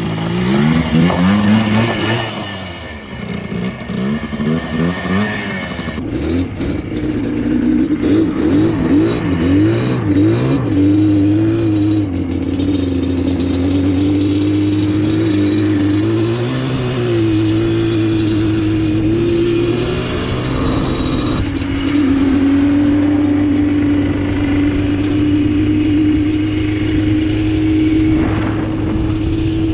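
ATV engine revving up and down repeatedly as it is ridden, then running at a fairly steady speed for the last several seconds.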